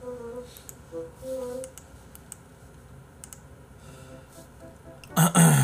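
Soft background music fading out, with faint scattered clicks, then near the end a short, loud vocal noise from the man at the microphone, low in pitch and falling.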